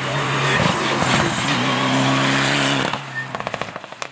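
Rally car passing at speed, its engine running hard with a steady note over the hiss of tyres on a wet road. About three seconds in, the engine falls away quickly as the car moves off, followed by a few short sharp crackles.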